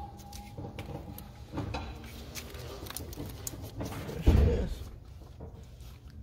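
Light clicks and knocks of plastic and metal as the port injectors and fuel rail are pushed back down into the intake runners, with one loud, low thump about four seconds in.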